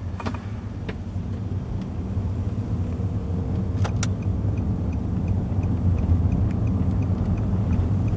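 Compact car running on the road, heard inside the cabin as a steady low engine and road rumble. About four seconds in there is a sharp click, then a light, regular ticking about two to three times a second, typical of a turn-signal indicator as the car nears a junction.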